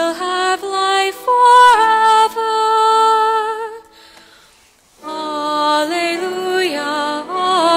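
Sung Gospel Acclamation (Alleluia) at Mass: a melody of held notes moving in steps, with a pause of about a second near the middle before the singing resumes.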